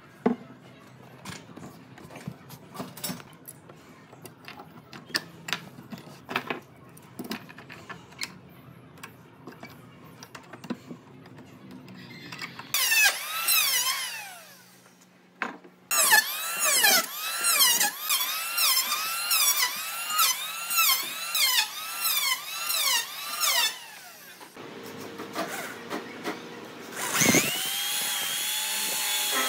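Light knocks and clatter of pine pieces being handled and fitted at first. Then, from about a third of the way in, an electric hand planer cuts along a pine rib in repeated passes, its pitch dipping and recovering with each stroke. Near the end an electric drill spins up and runs steadily as it bores into the wood.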